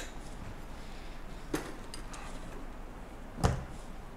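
Two short knocks of kitchenware being handled on a tabletop, as an ice scoop and a glass measuring cup are put down and picked up. The first knock is light; the second, about three and a half seconds in, is louder and duller.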